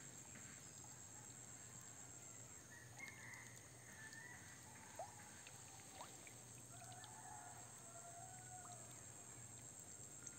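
Near silence: a faint steady background hiss with a few faint, distant short calls and a couple of light clicks.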